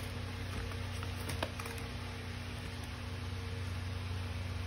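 Steady low hum and hiss, with a few short crackling clicks from cellophane-wrapped packages being handled about a second and a half in.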